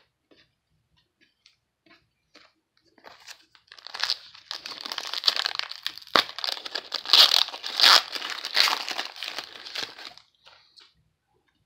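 A trading card pack's shiny wrapper being torn open and crinkled by hand: a few faint clicks, then about six seconds of dense crinkling with a sharp snap about six seconds in.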